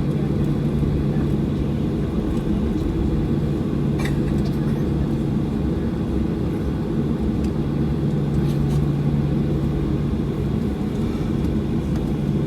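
Steady cabin rumble inside a Boeing 737-800 taxiing, its CFM56-7B engines at idle, with a constant low hum. A couple of faint clicks come about four and eight and a half seconds in.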